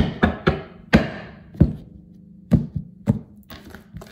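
A tarot deck being shuffled by hand and knocked against the table: about eight sharp taps and slaps at uneven intervals, with softer card rustling near the end as the deck is set down.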